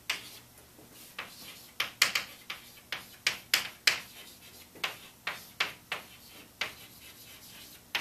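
Chalk writing on a blackboard: a quick, irregular run of sharp taps and short scrapes as the letters are formed, about two a second, with a short pause a little after the middle.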